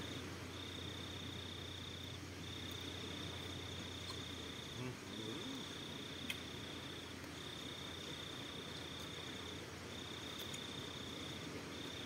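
An insect trilling at a steady high pitch, in long unbroken stretches of a second or two with brief breaks between. A single sharp clink, a spoon against the metal pot, comes about six seconds in.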